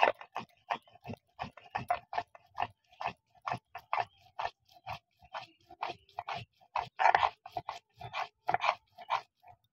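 Cumin seeds being ground to a paste on a shil-nora: the stone pestle rubbed back and forth over the scored flat grinding stone. It makes a quick run of gritty, crunching scrapes, about three strokes a second.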